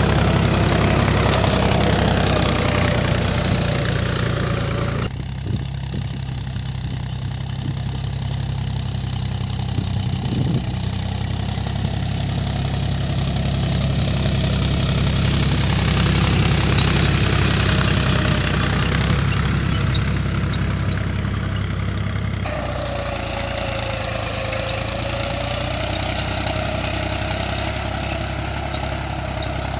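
Mahindra 275 DI tractor's three-cylinder diesel engine running steadily under load while pulling a tine cultivator through dry soil. The sound changes abruptly twice, about five seconds in and again a little past twenty seconds.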